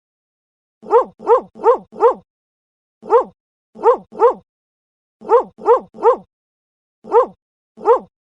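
Dog barking: twelve short barks in bursts of one to four, the same bark repeated each time, with silence between the bursts.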